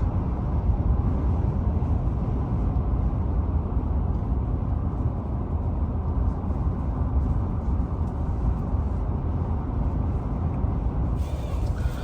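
Steady road and tyre noise heard from inside the cab of a Ford F-150 Lightning electric pickup at highway speed, a low even rush with no engine sound.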